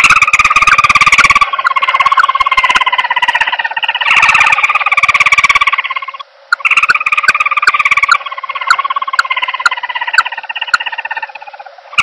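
Bird-trapping lure recording of the common emerald dove: a fast, buzzy trilling call, its pitch sagging slightly in each run. It breaks off briefly about six seconds in and fades near the end.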